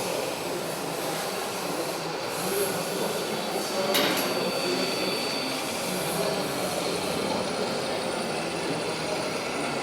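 Steady whirring of small electric RC model vehicles driving, with one sharp knock about four seconds in.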